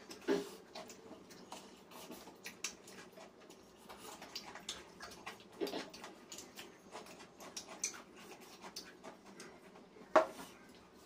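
Eating by hand: wet chewing and lip-smacking clicks while rice and chicken curry are mixed and eaten with the fingers, with a few louder knocks of hands and utensils against steel plates and bowls. The loudest knock, near the end, comes as a steel cup is picked up.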